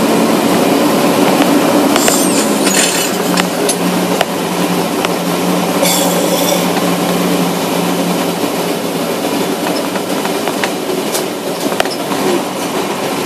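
Vehicle driving slowly over rough asphalt: steady road and tyre noise with a low engine hum, and scattered clicks and rattles from the vehicle.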